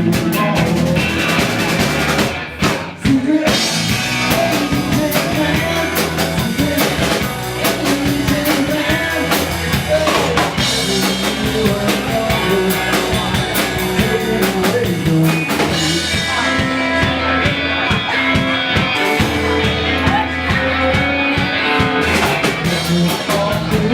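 Live rock band playing, with a drum kit keeping a steady beat under guitar and bass; the music briefly thins out about two and a half seconds in.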